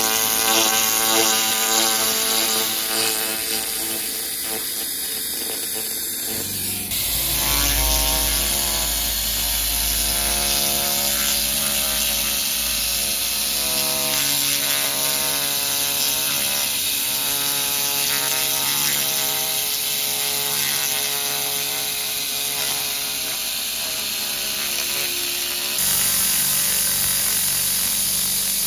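Handheld LightWave fiber laser cleaner working over welded steel: a steady buzzing whine from the scanning head over a hiss of ablation as the beam strips weld discoloration. The tone changes abruptly twice.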